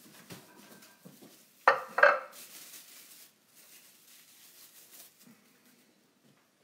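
A spatula stirring pasta and vegetables in a stainless steel sauté pan: two loud clanks against the pan about two seconds in, with softer stirring noises around them.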